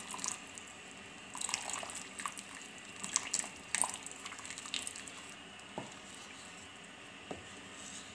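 Wooden spoon stirring thin soup in a pan as cornflour slurry is stirred in: scattered soft knocks and scrapes of the spoon against the pan with faint liquid sloshing, mostly in the first five seconds.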